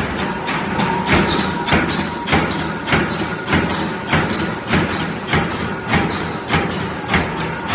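Expanded metal machine running, its press blade slitting and stretching steel sheet fed from a roll into mesh: a regular thud with a metallic clatter, a little under two strokes a second.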